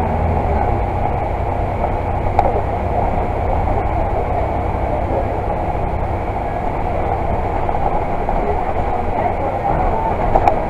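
Ride noise inside the upper deck of a Volvo Super Olympian 12 m double-decker bus on the move: a steady rumble of engine and road with body rattles. A few sharp clicks come through, one about two seconds in and another near the end.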